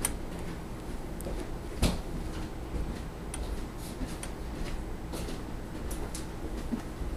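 Faint scattered clicks and light knocks over a low steady hum, with one sharper knock a little under two seconds in.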